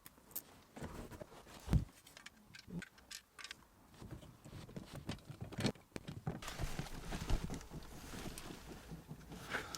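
Handling noise as a GPS tracker unit and its wiring are fitted under a speaker cover: scattered clicks and small knocks, a thump a little under two seconds in, and denser rustling in the second half.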